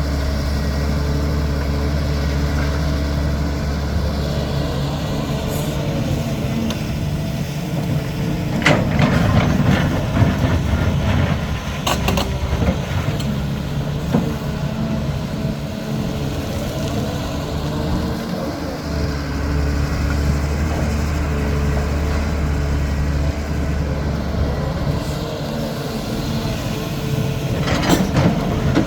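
CAT 320D excavator's diesel engine running steadily under working load, its note easing for a while midway. Sharp knocks break in about a third of the way in, shortly after, and again near the end.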